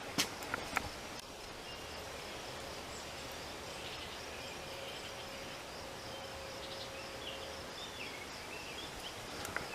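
Steady faint background hiss with two sharp clicks just after the start and a few faint high chirps in the middle.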